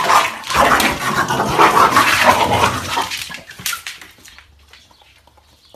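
An Australian cattle dog and a white dog snarling and growling in a short fight, loud for about three seconds and then dying away.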